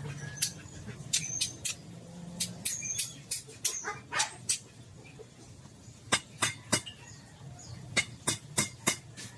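Sharp taps and knocks on the metal door hinge during the fitting of a new copper bushing. They come in quick irregular groups of two to four, with pauses between.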